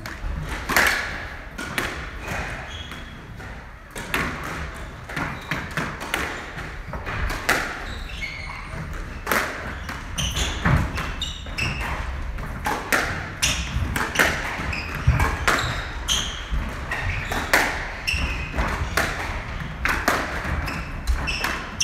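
Squash rally: the hard rubber ball struck by rackets and smacking off the court walls in a run of sharp, irregular knocks and thuds.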